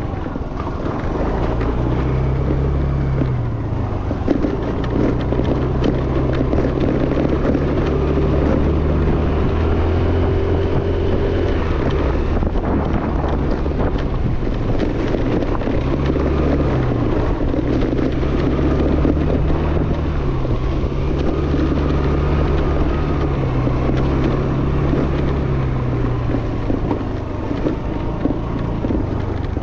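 Yamaha Fascino scooter's single-cylinder four-stroke engine running on the move. Its note drops and picks up again several times as the speed changes, with wind buffeting the microphone throughout.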